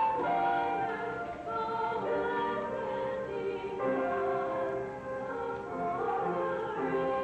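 A woman singing a melody in held notes, accompanied by a flute.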